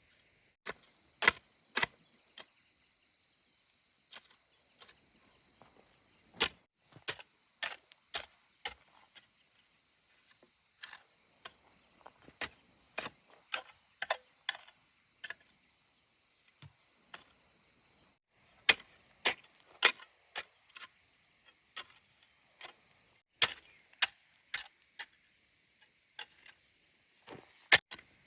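Sharp knocks or clicks at an uneven pace, sometimes several in quick succession, over a steady high-pitched drone of insects.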